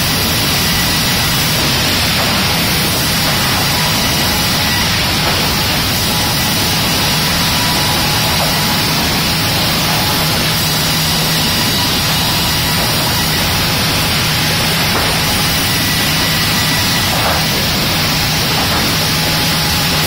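Loud, steady din of sawmill production-line machinery running: saws, rollers and board conveyors making a dense, unbroken noise with a faint whine in it.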